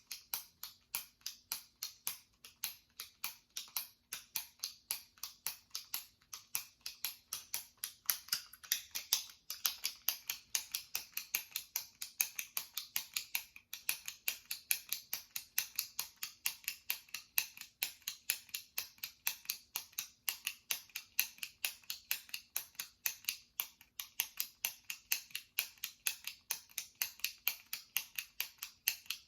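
Jumbo retractable pen clicked over and over by pressing its top button, the plastic mechanism giving sharp, even clicks about four or five a second.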